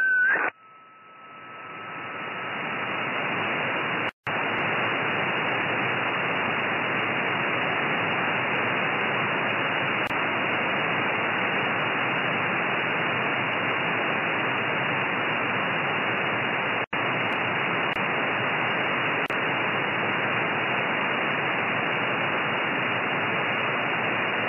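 Steady receiver hiss from an RTL-SDR on 2320 MHz upper sideband with no station on frequency. A whistle stops about half a second in as the received signal ends, then the hiss swells over a couple of seconds as the slow AGC recovers. Two brief dropouts break it near 4 and 17 seconds in.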